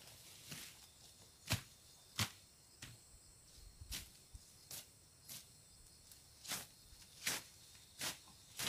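A machete swishing and slicing through tall grass, about a dozen short sharp cuts coming roughly one every half-second to second. A faint steady high insect drone sits underneath.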